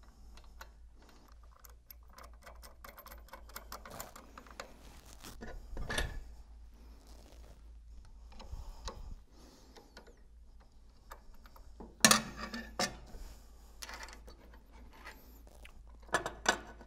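Small metallic clicks and clinks of nuts being threaded by hand onto the bolts of a pump shaft coupling, with a few louder metal knocks, about six seconds in, about twelve seconds in, and twice near the end.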